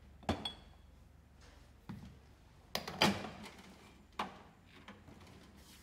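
Espresso portafilter and tamper handled on a metal tamping station: about five sharp metallic knocks and clunks, the loudest about three seconds in.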